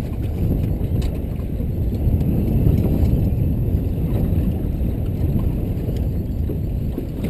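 Steady wind buffeting the microphone, mixed with choppy sea washing around a small open boat.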